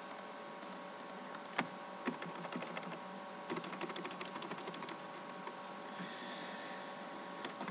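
Scattered clicks of a computer mouse and keyboard, with a quick flurry of clicks about three and a half seconds in, over a faint steady electrical hum.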